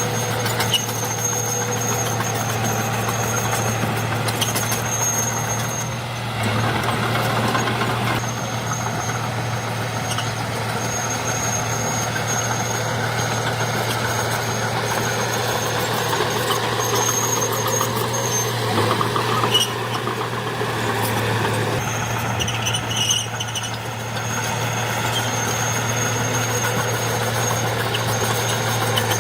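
Heavy diesel construction machinery running steadily under load, with a thin high squeal that comes and goes.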